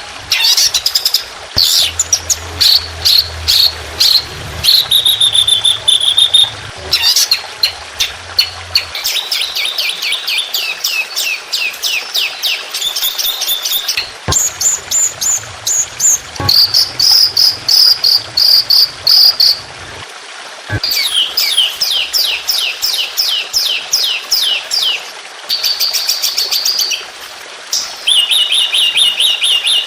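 Recorded songbird song for training competition birds: fast runs of sharp descending chirps and rattling trills, broken by short held whistles, repeating with brief pauses.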